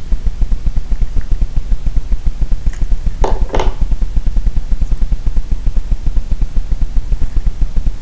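A steady low throbbing hum, pulsing evenly several times a second, with two brief sharp clicks about three seconds in as the small 3D-printed plastic socket parts and wires are handled.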